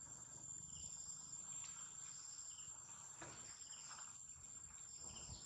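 Faint outdoor insect sound: a steady high-pitched drone with short soft chirps about once a second, and a couple of soft scuffs.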